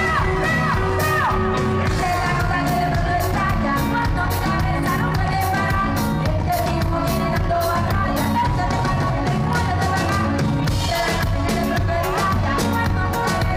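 Colombian fusion band playing live, with a female singer singing into a microphone over a drum kit keeping a steady beat.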